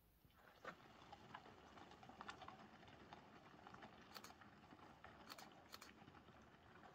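Faint steps crunching on a dirt and gravel trail: irregular sharp clicks about once or twice a second over a soft hiss.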